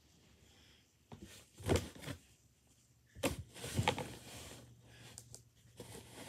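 Rustling and handling noises with a few soft thumps as stuffed toys are picked up and put into a box, in three short bursts.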